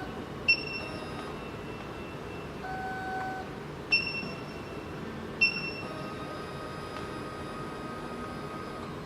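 Three short high-pitched beeps from the SEC-E9 key cutting machine's touchscreen as on-screen buttons are pressed, over a steady low hum.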